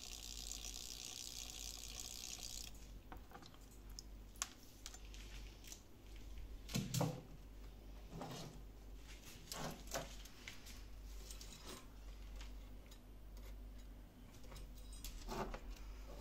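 About three seconds of water hiss, then scattered knocks and clicks, the loudest about seven seconds in, as wet fishing lures are handled and set down on a wooden countertop.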